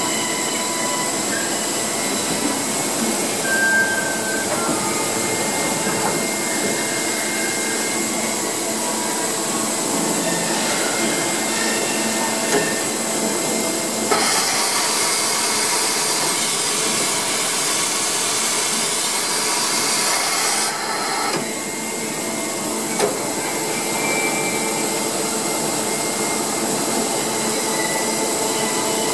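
Toshiba BTD-11E.R16 horizontal boring mill running through an automatic tool change: a steady machine hum with several held tones. About halfway through, a loud hiss joins in for about seven seconds and then stops suddenly.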